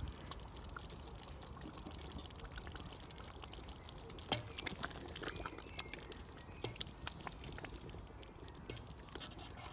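Thick tomato stew simmering in a cauldron: a steady low bubbling with scattered pops.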